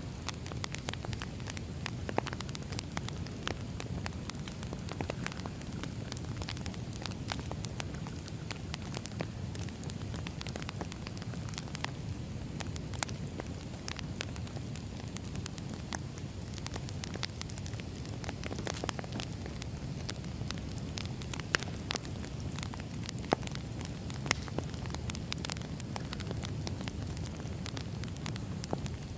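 Burning firewood crackling: a steady low rush of flame with frequent sharp crackles and pops, a few louder pops a little past the middle.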